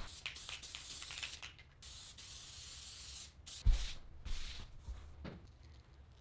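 Aerosol spray adhesive hissing in two long bursts, followed by a thump and rubbing as fabric and leather are pressed together and handled.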